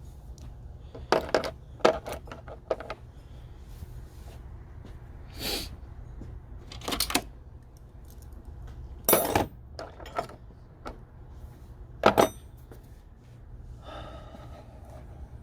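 Hand tools and car parts clinking and clanking as they are worked and set down: about a dozen sharp metallic knocks, scattered and irregular, with a short pitched squeak near the end.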